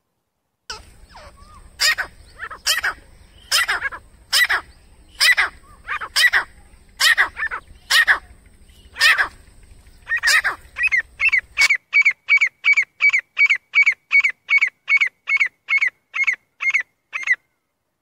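Grey francolin calling: a series of loud, ringing notes about one a second with softer notes between. Near the end it changes to a faster run of about three and a half clipped notes a second.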